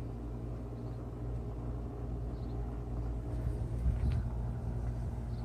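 Low, steady outdoor background rumble with no distinct event in it.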